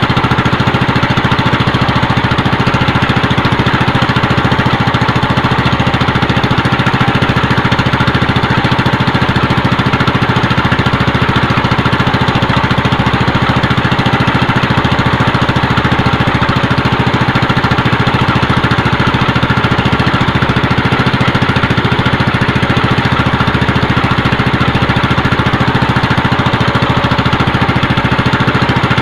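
Small boat engine running steadily at low throttle, an even, unchanging drone.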